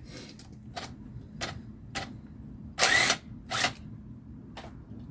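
Tool work on a motorcycle: a series of short, sharp clicks, with two louder brief bursts about three seconds in.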